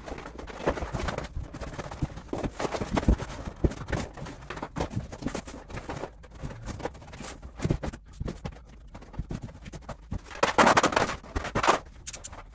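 A large sheet of Cowtan and Tout Stingray metallic-finish wallpaper rustling and crackling as it is handled and pressed against the wall, with irregular taps and knocks. The rustling is loudest about ten to twelve seconds in.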